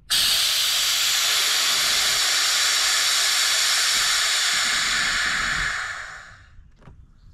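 Golf cart rear air suspension dumping air to lower the rear: a loud, steady hiss of air venting from the air bags while the dash switch is held. It starts abruptly and tapers off after about six seconds.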